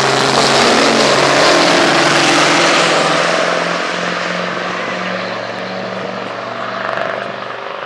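Two diesel pickup trucks drag racing at full throttle, a steady engine drone that fades over the second half as they pull away down the strip.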